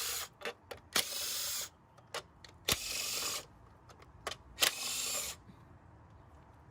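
Cordless impact gun spinning out the 10 mm bolts that hold an engine's top cover, running in short bursts of under a second, three times, with small clicks of socket and bolts in between.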